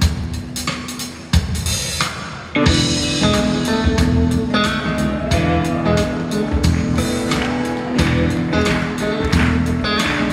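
Live music: an acoustic guitar strummed in a steady rhythm with drums, filling out and getting louder about two and a half seconds in.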